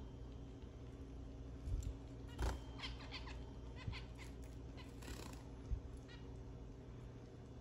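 Zebra finches calling: a quick run of short, high chirps about two and a half seconds in and a few more about five seconds in, with a few soft low thumps between.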